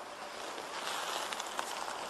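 Blackboxx red smoke flare burning in snow and hissing steadily as it pours out smoke. The hiss swells a little under a second in, with a few faint crackles.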